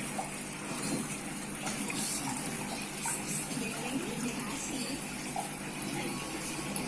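Water running steadily, with a light splashing.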